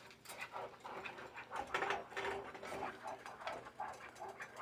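A utensil stirring Jell-O powder into hot juice in a saucepan: a quiet run of quick, irregular clicks and scrapes against the pan.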